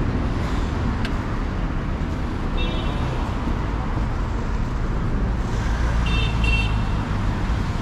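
City street traffic: cars passing with a steady low rumble. Two short high tones sound over it, about three seconds in and again about six seconds in.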